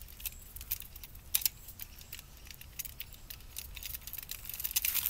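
Scattered light clicking and rattling of a toy cap gun being handled, spun and caught during gun-spinning tricks, over a low steady rumble.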